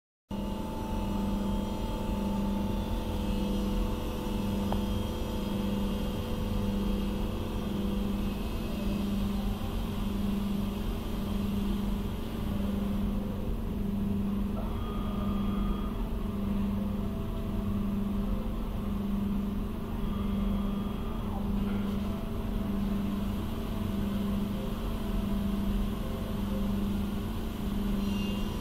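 Machine running steadily: a low hum with a short, regular dip about once a second, over a steady rumble and higher whirring tones.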